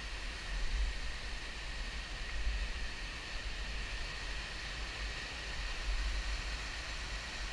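Whitewater rapids rushing steadily over and between boulders, a continuous broad hiss, with an uneven low rumble beneath it.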